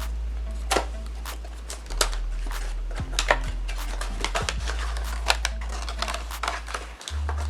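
Background music with a deep, held bass line that changes note every couple of seconds, over many sharp clicks and crinkles from the speaker's packaging being opened and handled.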